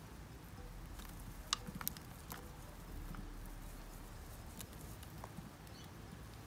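Faint crackle and patter of potting mix crumbling off a Venus flytrap's root ball into a bucket as hands pull at it, with a few sharp ticks between about a second and a half and two and a half seconds in.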